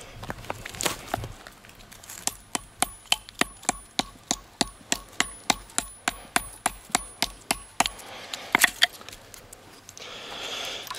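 A fast, even run of sharp clicks or taps, about four a second, lasting several seconds, with a faint high whine beneath it. There is a single louder click before the run and another just after it.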